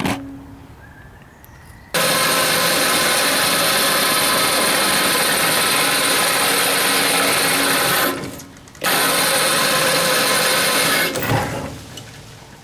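Electric winch motor running steadily under load as it pulls in cable on a log, for about six seconds, pausing briefly, then running again for about two seconds.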